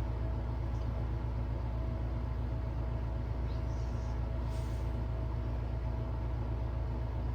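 Steady low hum with a thin constant whine above it: the background drone of machinery running in a small room, unchanging throughout.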